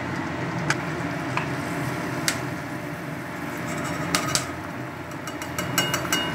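Peanuts sizzling steadily in hot oil in a metal kadai, with a perforated metal skimmer clinking against the pan several times, most often near the end, as the nuts are stirred and scooped out.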